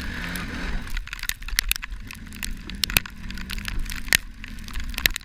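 Kawasaki Brute Force 650 ATV's V-twin engine running low and steady under many irregular sharp crackling clicks.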